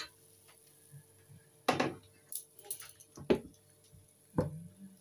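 Cookware being handled on a gas stove's hob: a few separate clanks and scrapes of a wok, a ceramic bowl and a metal spoon, about five in all, the loudest a little past three seconds in.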